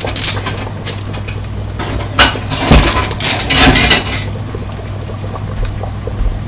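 Pot lids clattering and clinking against each other and the cookware while being rummaged through to find one that fits a saucepan. One clank comes about a second in, and the loudest cluster falls between about two and four seconds.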